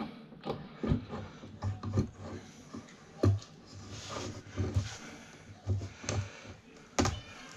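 Irregular clicks, light knocks and rustling of small hand tools working on electrical wire, stripping the insulation.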